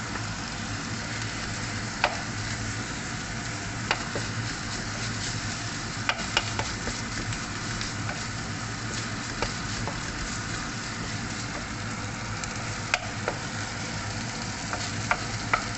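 Hot oil sizzling steadily in a pan as curry leaves fry with garlic and onion, stirred, with scattered sharp clicks every second or two.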